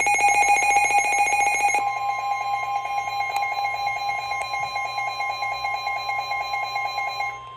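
Emergency Alert System attention tones from a weather radio, sounding ahead of a severe thunderstorm warning. A rapidly pulsing electronic alarm tone plays for about the first two seconds and then holds steady; a second steady tone, the NOAA Weather Radio warning alarm, joins it. The first tone cuts off near the end while the second carries on.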